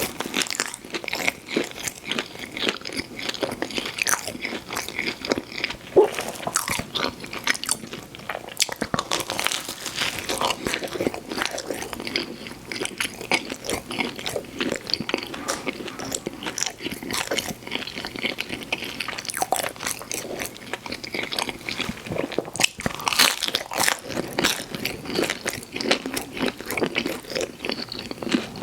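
Close-miked eating sounds of pizza: biting into crust and chewing, with dense, irregular crunches, crackles and wet mouth sounds, a sharper bite about six seconds in.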